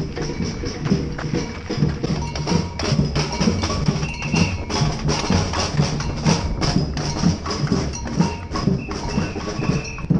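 Street drum band playing a fast, steady rhythm on drums and hand percussion, with sharp repeated strikes throughout.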